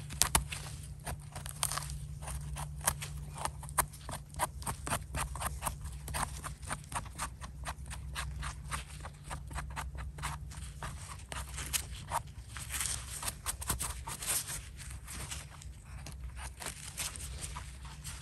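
Knife blade scraping and trimming soil off the base of a freshly picked bolete mushroom's stem: quick, dense scratching and crunching clicks over a steady low hum.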